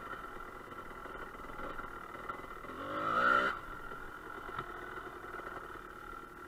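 Dirt bike engine running at low trail speed, revving up briefly about halfway through and then easing back off.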